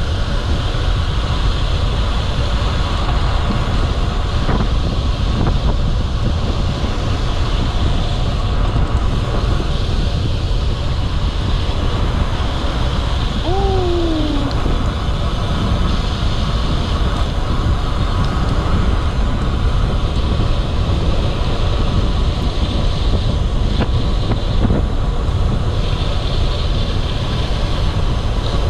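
Steady wind rush and buffeting on the microphone of a camera riding along on a moving road bike, a constant low rumble with no break. A short falling squeak sounds once, about halfway through.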